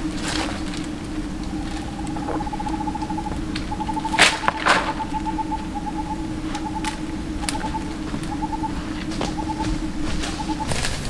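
Tropical forest ambience: a steady low hum with a fast pulsing trill repeating in short bursts over it. About four seconds in come two loud rustles, as leaves are handled near the ground.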